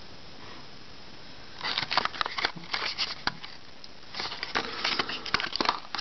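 Crinkling, rustling and clicking of the card-and-plastic packaging of a combination padlock being handled and pulled apart, in two spells starting about two seconds in.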